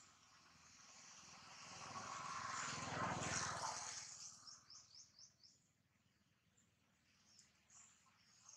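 A motor vehicle passes, its engine sound swelling to a peak about three seconds in and fading away soon after. Birds chirp in a quick run of short high notes just after it passes, and a few more chirp near the end.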